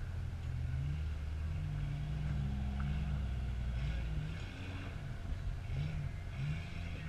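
Lifted Jeep Cherokee XJ rock crawler's engine under low-speed load crawling over rocks, its pitch rising and falling several times as the throttle is worked.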